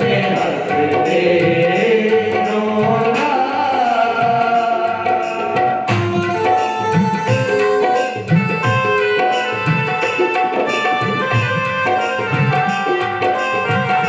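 Hindi devotional bhajan music: tabla keeping a steady rhythm under sustained melody lines.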